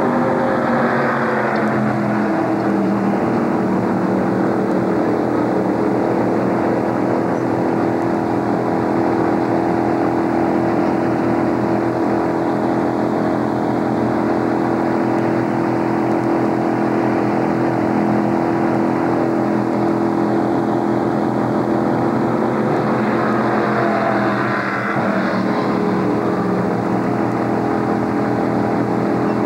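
Stock car V8 engines idling steadily on pit road, a loud, even engine note throughout, with another engine briefly sweeping in pitch about a second in and again near 24 seconds.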